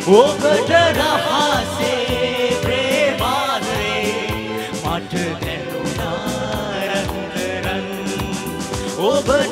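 Live band music with a man singing into a microphone over a steady drum beat.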